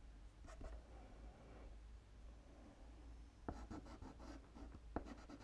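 Faint scratching and rubbing of a soft pastel stick on the painted surface as white pastel is worked in, with a few light clicks.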